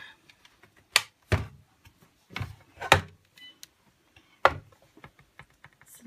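Sharp plastic clicks and knocks from the hard plastic body and attachments of a Hoover Jovis handheld vacuum being handled, about five in all, a few with a dull thump; the vacuum motor is not running.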